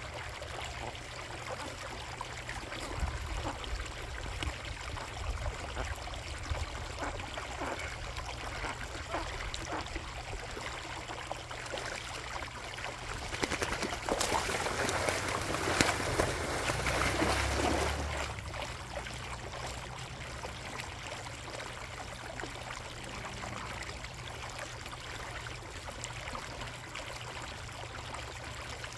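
Koi pond water steadily trickling and running, with a louder stretch of a few seconds about halfway through.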